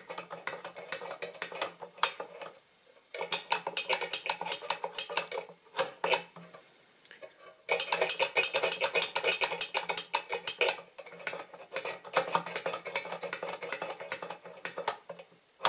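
Rapid metallic clicking of a pressed-metal Add-em toy adding machine, about four or five clicks a second, as its increment buttons are pressed over and over and the three-digit register counts up and carries over. The clicking breaks off briefly twice.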